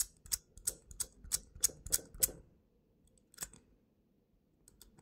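Number wheels of a Globe combination padlock being scrolled by hand, clicking about three times a second for roughly two seconds. After a pause there is one more click, then a few faint ticks near the end.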